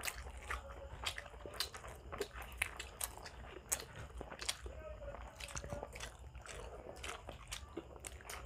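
Close-miked eating: people chewing and biting into grilled Filipino barbecue and rice eaten by hand, heard as irregular sharp mouth clicks, several a second.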